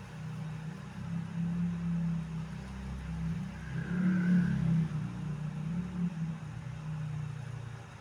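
Motorcycle engine running and revving, its pitch and loudness rising and falling several times, loudest about halfway through, then easing off near the end.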